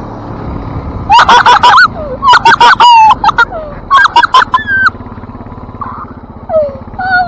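Four-wheeler (ATV) engine running steadily while towing sleds through snow. From about a second in, a run of loud, high-pitched, wavering squeals and shrieks in quick bursts that fade out near five seconds, with one more falling squeal near the end.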